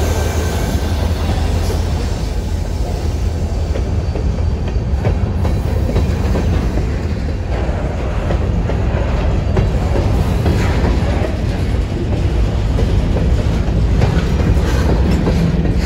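Freight train of covered hopper cars rolling past at close range: a steady, loud rumble of steel wheels on rail, with scattered clacks from the wheels and couplers.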